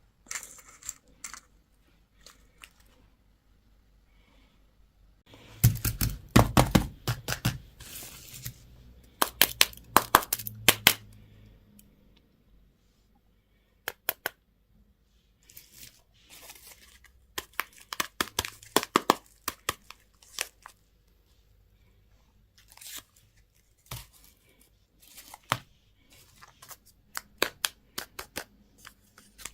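Plastic candy wrapping being torn open and crinkled by hand, in bursts of crackling separated by short pauses.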